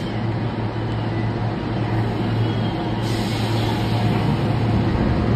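Steady low hum of a subway car standing in a station, with a hiss that starts about three seconds in.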